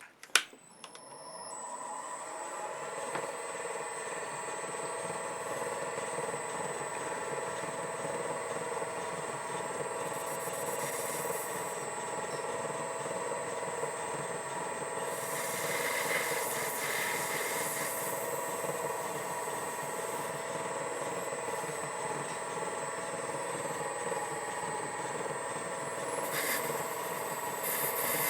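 Small metal lathe spinning up about a second in and then running steadily with a steady hum, while a cutting tool turns down a small metal oiler blank; the hiss of the cut comes and goes several times.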